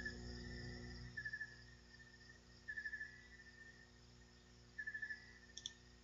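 Faint chirping in short trills of four or five quick pulses, repeating every second or two, over a low steady hum.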